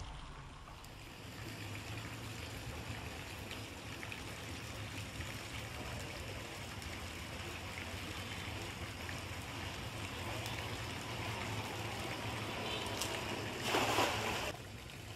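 Steady background noise with a low rumble, then a short, loud splash about fourteen seconds in as a cast net is thrown and lands on the pond's surface.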